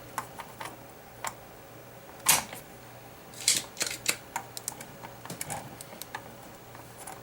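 Sharp clicks and short snaps of desoldering tools working on a car amplifier's circuit board, a few loud ones between about two and four seconds in and lighter ticks around them.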